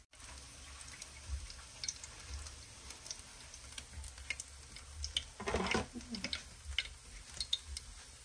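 Hot oil crackling and popping around deep-frying sticky-rice-wrapped chicken: scattered sharp, irregular crackles, with a louder rush of noise lasting about half a second about five and a half seconds in.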